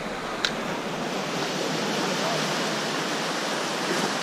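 Seawater washing and surging around shoreline rocks, a steady rush with no break. A single short click about half a second in.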